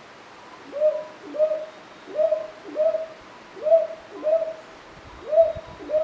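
Northern boobook (brown hawk-owl) giving its paired hoots, hoo-hoo, hoo-hoo, four pairs at a steady pace, each note sliding up slightly into a short level tone.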